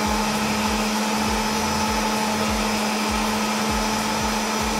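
Kenwood Cooking Chef stand mixer's motor running steadily at maximum speed with a constant hum, beating egg yolks, sugar and amaretto into a sabayon.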